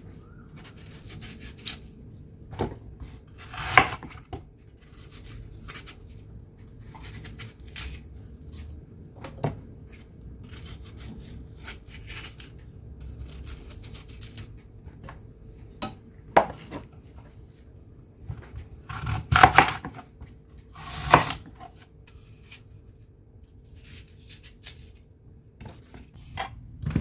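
Knife cutting peeled apples and pears on a cutting board: irregular knocks and scrapes, with a handful of louder clatters of the knife and dishes. A faint steady hum runs underneath.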